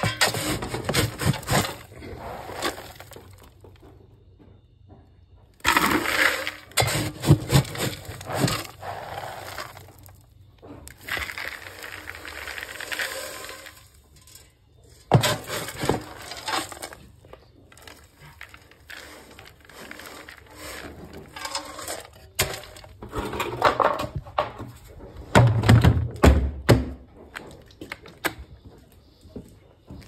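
Dry feed pellets being scooped and poured: a plastic scoop scraping through the pellets in a bucket and the feed rattling into other buckets, in several bursts of clatter with short pauses between.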